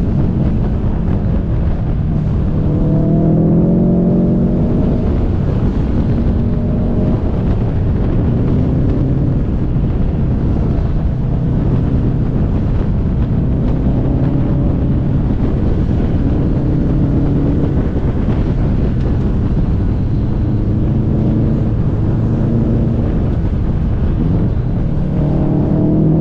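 Subaru WRX STI's turbocharged flat-four engine pulling through corners, its pitch rising under acceleration about a third of the way in and again near the end and easing between, over a heavy low rumble of road and wind noise.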